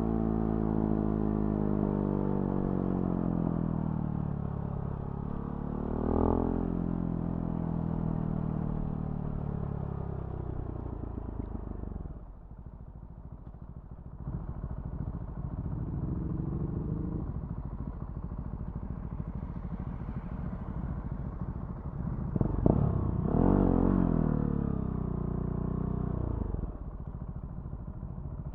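Husqvarna Svartpilen 701's single-cylinder engine through a Remus NXT exhaust, slowing down with its pitch falling over the first several seconds, a short rev blip about six seconds in, and dropping low and quiet around twelve seconds in. It then pulls away again, with a sharp rev blip about twenty-three seconds in and a drop in pitch shortly after.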